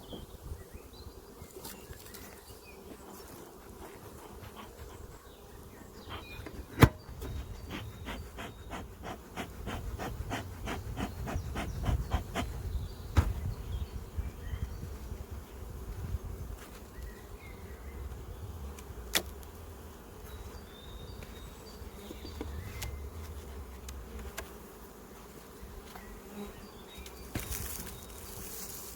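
Honeybees buzzing in a steady hum around the hives. A few sharp knocks stand out, the loudest about seven seconds in, and near the middle there is a run of quick, even clicks, about three a second, for around five seconds.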